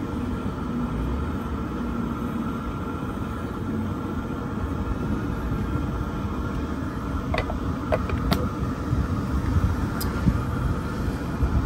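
Steady low rumble of outdoor background noise, with a few light clicks and taps about seven to eight seconds in and once more near ten seconds.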